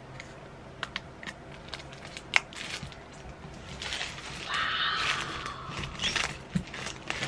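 Plastic shrink wrap being cut and pulled off a boxed book: scattered small clicks and crinkles, then a louder rustle of plastic about four seconds in.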